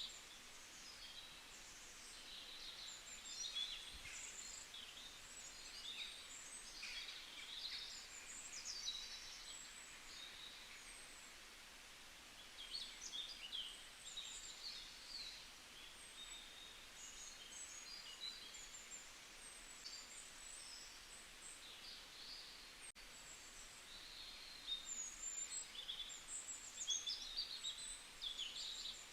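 Songbirds chirping and trilling, several calls overlapping in flurries, over a faint steady hiss.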